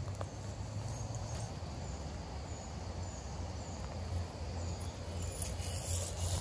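Outdoor street ambience while walking: a steady low rumble with a few faint, short, high chirps and a couple of light clicks.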